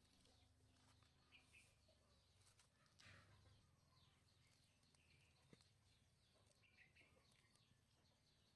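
Near silence: faint outdoor background with a few faint, short high chirps.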